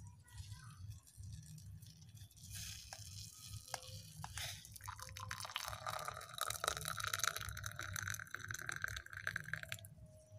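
Freshly boiled bay leaf decoction poured from a saucepan into a glass: a thin liquid stream that builds after a few light clicks, runs fuller for several seconds, then stops sharply near the end.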